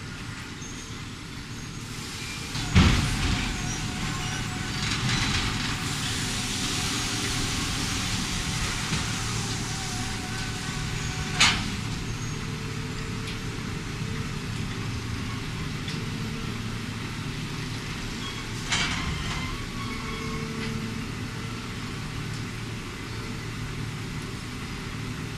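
Heavy machinery running steadily while logs are handled: a loud knock about three seconds in, another near twelve seconds and a third near nineteen seconds, with a stretch of hiss between about five and ten seconds.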